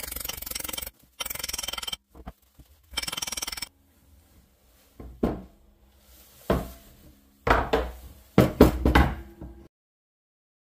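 Three long scraping strokes, then a string of hammer knocks with a short metallic ring as a wedge is driven into the eye of the axe head on its new wooden handle. The sound stops suddenly near the end.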